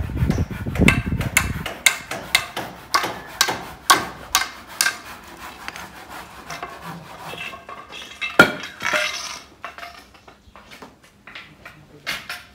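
Irregular sharp knocks and metallic clinks of hand carpentry on a timber roof frame, thick at first and then sparser, with one loudest knock near the two-thirds mark. A low rumble runs under the first couple of seconds.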